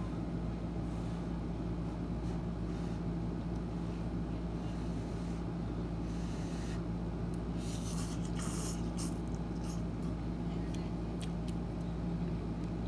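A person eating instant cup noodles with a fork, with a few short slurping or scraping sounds around the middle, over a steady low hum.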